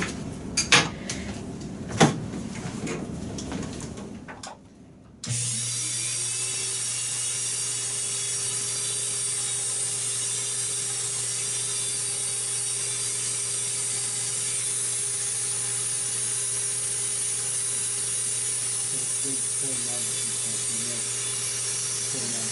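A few sharp clicks, then about five seconds in an electric nail drill starts abruptly and runs steadily, thinning and smoothing toenails.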